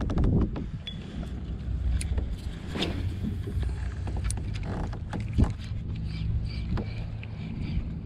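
Handling noise of a spinning rod and reel being worked from a kayak: a few irregular sharp clicks and knocks, the loudest about five seconds in, over a steady low rumble.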